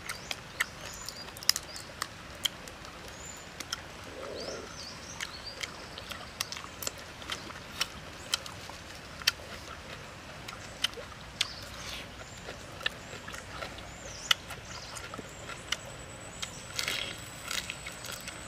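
Close-up eating sounds of grilled shrimp: shells crackling as they are peeled and crunching in the mouth, in sharp irregular clicks a few times a second. Faint high bird chirps can be heard in the background.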